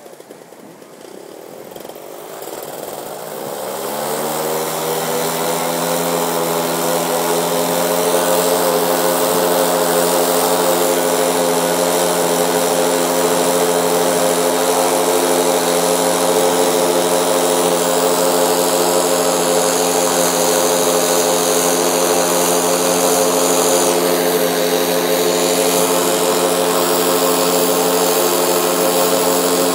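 Paramotor (powered paraglider) engine throttling up. Its pitch rises and it grows louder over the first few seconds, then it runs at a steady high pitch at full power.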